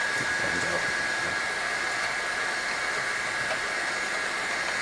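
Cooling fans of a switched-on Kingroon 3D printer running steadily: an even whooshing hiss with a constant high whine.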